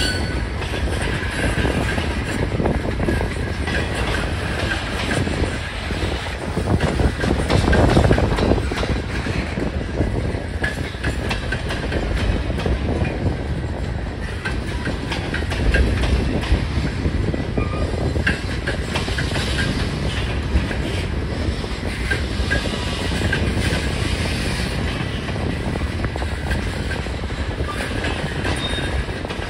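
A mixed freight train of tank cars, covered hoppers and boxcars rolling past, its steel wheels clattering steadily over the rail joints. There is a swell in the noise about eight seconds in and a sharp knock about halfway through.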